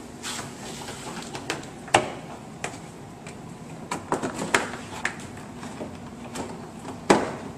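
Plastic front bumper cover being pressed and knocked into place by hand as it is fitted onto its mounting studs and alignment tabs. It gives irregular clicks and knocks, a cluster of them about four to five seconds in and a sharp one near the end.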